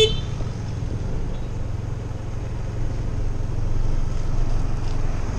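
Motorcycle engine running steadily while riding at cruising speed, under a constant rush of wind and road noise.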